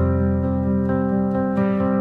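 Background music: sustained piano or keyboard notes changing every half second or so.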